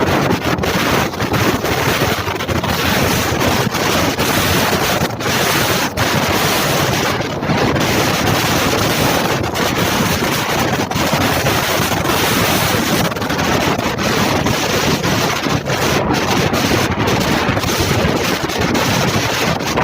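Strong wind rushing over the microphone: a loud, continuous roar of noise.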